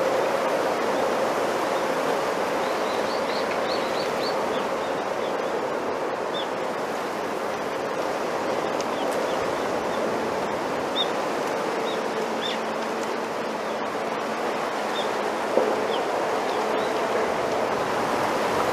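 Bamboo leaves rustling in the wind, a steady hiss of foliage, with short faint bird chirps now and then.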